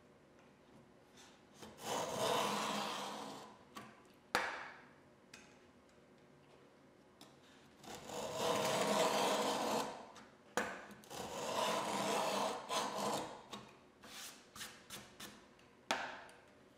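Hand router plane shaving wood from the bottom of a dado across a board. There are three longer scraping passes and several short strokes near the end, with a few sharp knocks in between.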